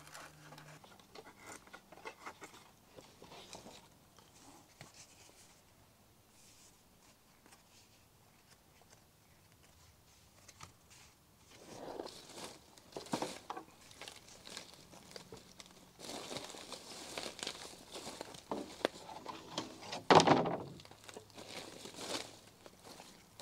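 Drawknife shaving a thin cedar sheathing strip on a wooden shaving horse: scattered scraping strokes, a quiet stretch in the middle, then more scraping and rustling of wood shavings with one loud crunch about twenty seconds in.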